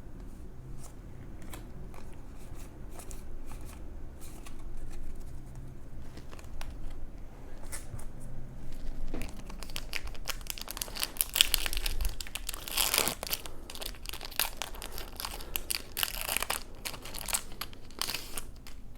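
Foil Yu-Gi-Oh! booster pack wrapper crinkling and tearing as the pack is opened and the cards are handled: scattered crackles at first, then dense crinkling through the second half.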